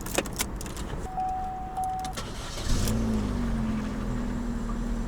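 An Opel car engine starts about two and a half seconds in and then idles steadily. Before it come a few clicks and a short electronic beep.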